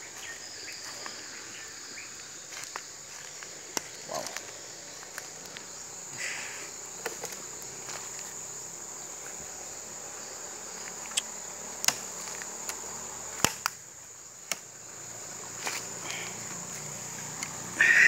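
Insects chirring steadily on one high pitch, with scattered sharp clicks and snaps throughout.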